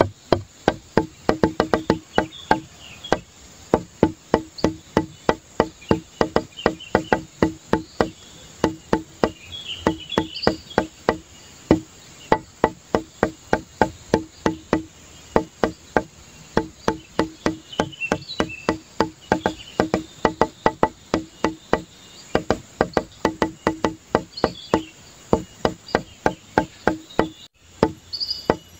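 Background music of quick, rhythmic pitched wooden-percussion notes, with short high chirps over them, broken by a brief gap near the end.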